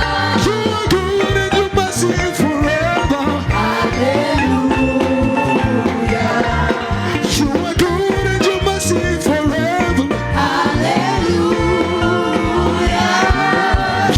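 Upbeat gospel praise music: a band playing a steady dance beat with voices singing over it.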